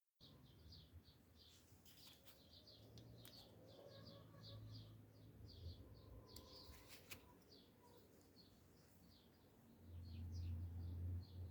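Faint birds chirping, a steady run of short chirps a few times a second. A low hum comes up near the end.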